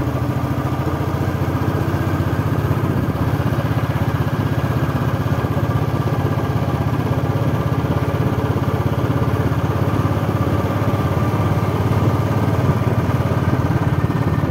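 A vehicle's engine running steadily while driving, a low even drone with road noise and no change in speed or pitch.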